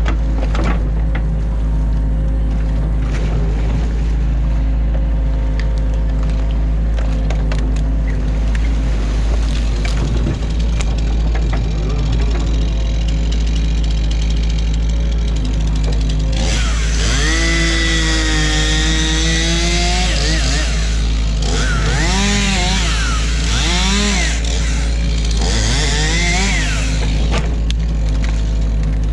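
Excavator working: its diesel engine runs steadily throughout. From about halfway there is a long, wavering squeal, followed by several shorter squeals that rise and fall, one after another, near the end.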